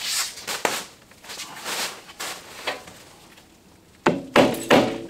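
Mallet strikes on a Willys MB windshield frame, knocking it to shift its position. A few scattered knocks come first, then a quick run of four or five sharper strikes near the end, each with a short metallic ring.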